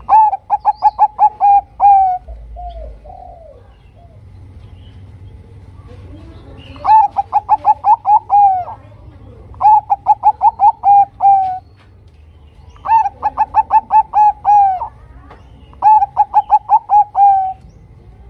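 Zebra dove (perkutut) of the Bangkok type singing its staccato cooing song: five phrases, each a quick run of about eight to ten clipped coos lasting about two seconds, with a few softer, lower coos after the first phrase.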